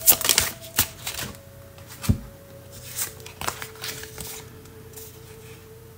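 Tarot deck shuffled by hand: a run of short, sharp card strokes for the first three and a half seconds, then quieter handling as cards are pulled from the deck.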